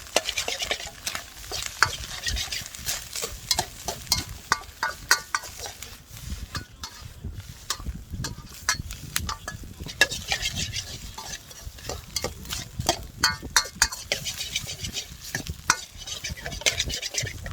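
Stir-frying in a Chinese wok: food sizzles with a steady hiss while a utensil scrapes and knocks against the wok in many quick strokes.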